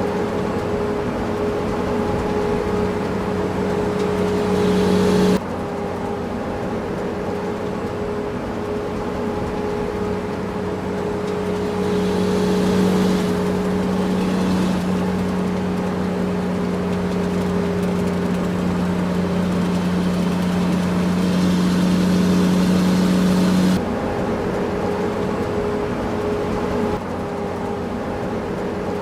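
Diesel engines of heavy earthmoving machinery running steadily with a constant hum. The sound grows gradually louder and changes abruptly about five seconds in and again about five seconds before the end.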